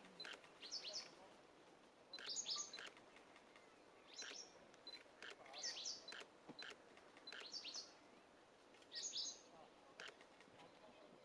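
Small birds chirping, short high chirps in clusters repeating every second or two, faint.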